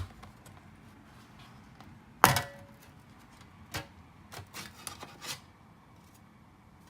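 A MacBook Pro's aluminium bottom case being lifted off and handled: one sharp metallic clank about two seconds in with a brief ring, followed by a few lighter clicks and taps.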